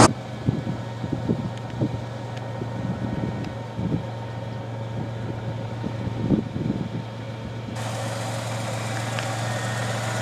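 Steady low hum of a car's engine and road noise heard from inside the vehicle, with a few faint knocks; about three-quarters of the way through a brighter hiss joins in.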